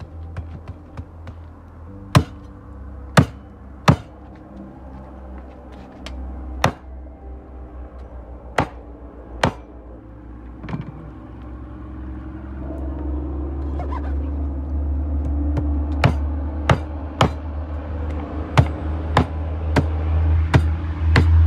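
Knife chopping through puffer fish: sharp single strikes, a second or more apart at first and coming quicker near the end, over a low rumble that grows louder from about halfway through.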